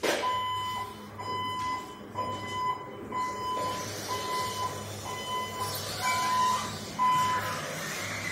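Warehouse truck's warning beeper sounding the same steady tone about once a second, over a low electric hum.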